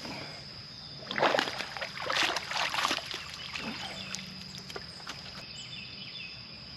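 Water splashing and sloshing at a kayak, in several bursts between about one and three and a half seconds in.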